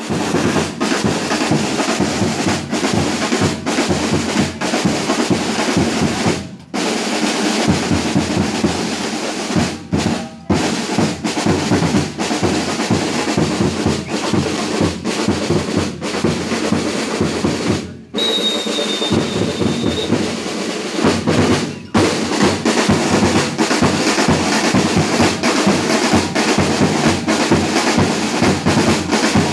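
Percussion band of large bass drums, snare drums and hand cymbals playing a dense, continuous rhythm, with a few brief breaks. A high steady tone sounds for about two seconds just after the break some eighteen seconds in.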